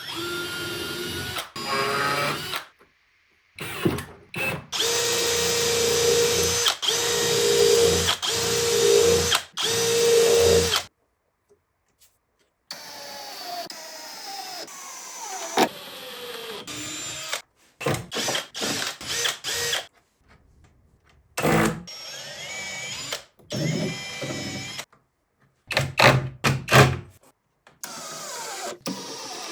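Power drill running in a series of short bursts, each starting and stopping abruptly, followed by quieter stretches of a motor whining and gliding up and down in pitch.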